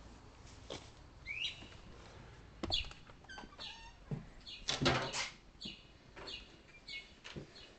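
A single bird chirping at night in a string of short, varied notes, some sweeping upward, that the bird keeps repeating; a brief louder rustle about five seconds in.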